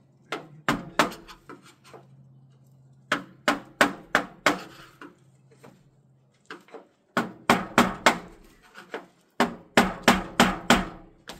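Hammer striking a metal chimney pipe in quick runs of blows with pauses between, each blow ringing. The runs grow denser and louder in the second half.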